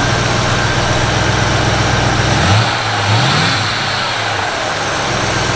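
Ford 302 V8 engine running at a steady idle, freshly tuned after a points, timing and carburettor adjustment, then revved up briefly about halfway through, its pitch rising twice before it settles.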